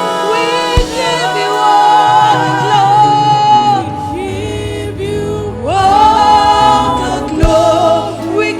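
Live gospel worship music: voices singing long held, sliding notes over a steady low instrumental accompaniment, with a sharp thump about a second in and another near the end.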